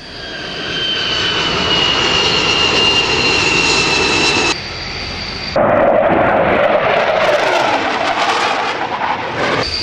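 Jet aircraft engines in a series of cut-together clips. First a turbine whine over rushing engine noise, its high tones sliding slowly lower. After a cut, a short quieter stretch with a high steady whine. Then the louder roar of jets flying past.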